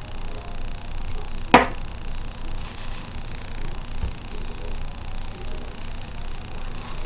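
A single sharp click about one and a half seconds in, then a faint low thud near four seconds, over a steady background hiss.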